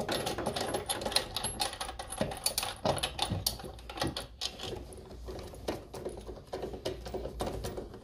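Socket ratchet wrench clicking rapidly in quick runs as it undoes the bolts holding a washing machine's direct-drive motor stator.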